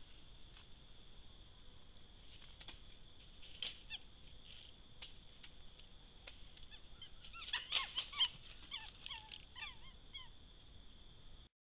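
Bearded capuchin monkey moving and feeding on dry leaf litter: scattered sharp crackles of dry leaves over a steady thin high whine. About seven and a half seconds in, a burst of short squeaky rising-and-falling chirping calls lasts about two seconds, and the sound cuts off suddenly near the end.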